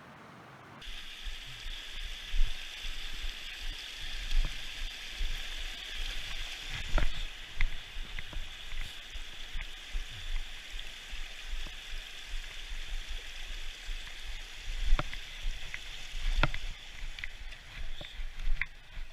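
Steady rush of flowing water, which starts abruptly about a second in, with scattered sharp clicks and knocks over it.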